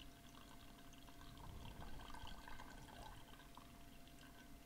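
Faint dripping and trickling of wort draining out of a steeped grain bag into a stainless steel brew kettle.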